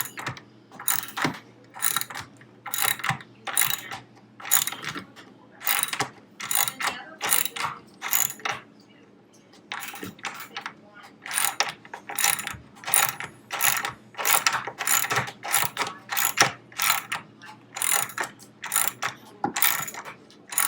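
Ratcheting socket wrench tightening a nut onto a table-leg bolt, clicking in repeated quick strokes about one and a half a second, with a short pause just past the middle.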